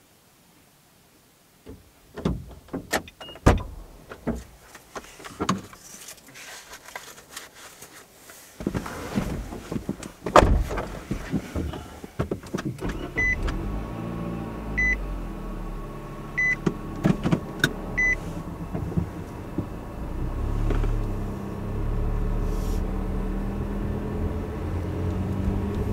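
A person getting back into a car: scattered knocks and rustling, then the car's running sound comes in and a car door shuts about ten seconds in. A dashboard chime beeps four times, about one and a half seconds apart, and the engine and road noise build as the car pulls away near the end.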